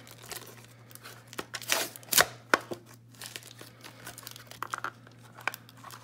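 Paper towel wrapping crinkling and rustling as a small black box is opened and unpacked by hand, with a few sharp clicks and taps, the loudest about two seconds in. A steady low hum runs underneath.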